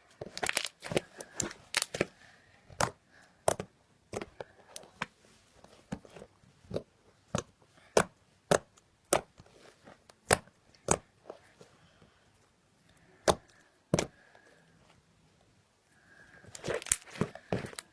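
Thick borax-activated slime being squeezed and pressed by hand, giving sharp clicks and pops at an uneven pace of about one or two a second, with quicker flurries near the start and near the end.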